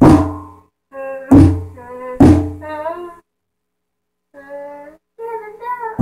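Drum kit struck three times in the first two and a half seconds, each hit a low thump with a bright cymbal-like splash, while a child sings held and sliding notes between the hits and again near the end.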